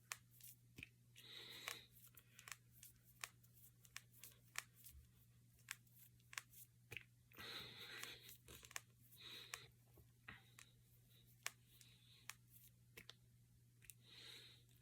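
Finger and knuckle joints cracking: a long string of faint, sharp pops at irregular intervals, with a few short soft rustles between them.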